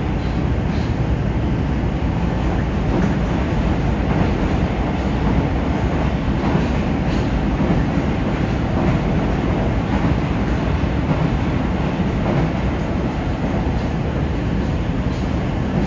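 Yokohama Municipal Subway 4000 series train running steadily, heard from inside the car: a constant low rumble of wheels on rail, with a few faint clicks here and there.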